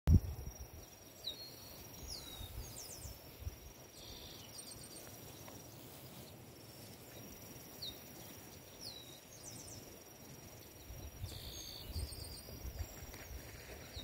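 Lakeside nature ambience: an insect trilling on one steady high note, broken off for about a second midway, with birds giving short falling chirps several times. A few low rumbles come and go, and there is a thump at the very start.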